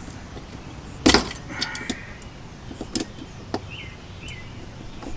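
Sharp knocks and clicks from handling an outlet and its mounting screws against a plastic electrical box, with one loud knock about a second in and a few lighter clicks after.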